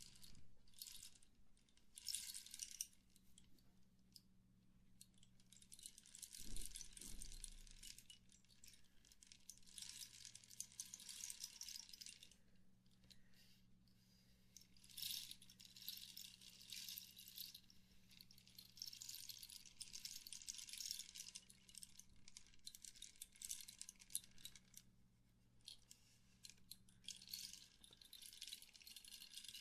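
Wind chime jingling softly, shaken in repeated bursts of one to three seconds with short pauses between them.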